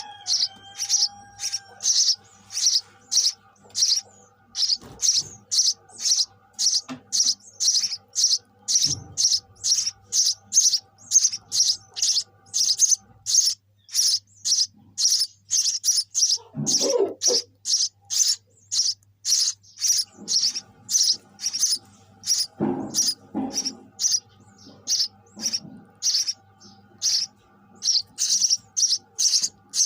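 Sparrow chirping over and over, single short high chirps about twice a second, with a brief pause partway through.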